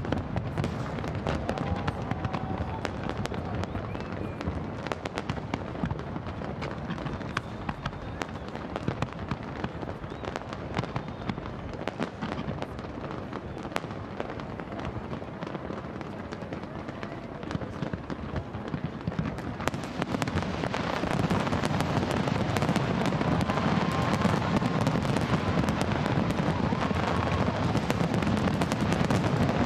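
Fireworks display going off in quick succession: a dense run of sharp pops and bangs from bursting shells, growing louder and fuller about twenty seconds in.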